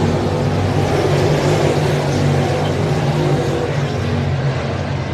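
Several dirt late model race cars with Chevrolet 604 crate V8 engines running around the track together. Their engines make a loud, steady mix whose pitch wavers slightly as they go through the turns.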